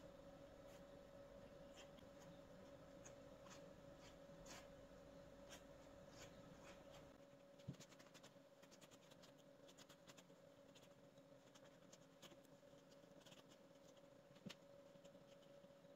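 Faint soft scratching and ticking of a pastry brush dabbing egg wash onto risen bread dough on a metal baking tray, with a couple of light knocks, over a steady low hum.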